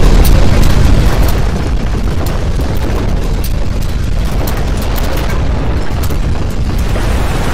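Deep, continuous earthquake rumble with scattered crackles and rattles through it, loudest at first and dropping somewhat about a second and a half in.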